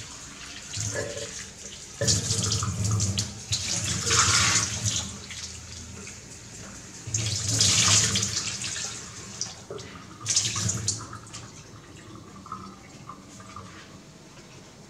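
Kitchen tap running in three bursts onto grapes in a plastic bowl in a steel sink, with a low hum under the water each time it runs.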